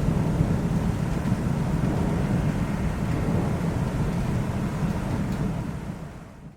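Low, rolling thunder rumble over steady rain, dying away near the end.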